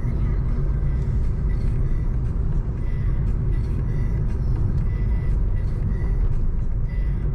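Lada Vesta driving along a road, heard from inside the cabin: a steady low rumble of engine and tyres.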